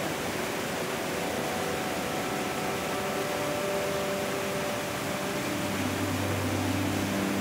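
Steady rush of a fast, silty glacial meltwater stream tumbling over boulders. Low steady tones come in about five seconds in.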